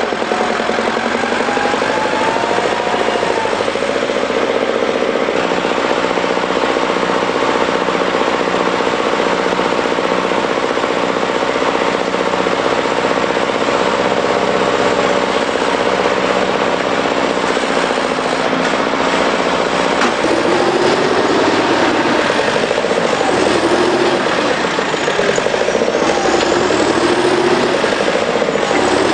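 Heavy diesel tractor engine running under load as the tractor works through deep mud, steady for the first two-thirds, then its pitch rising and falling repeatedly near the end.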